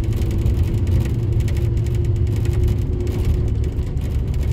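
Inside a moving bus: steady engine and road drone, heavy in the low end, with a faint steady whine over it that fades out about four seconds in.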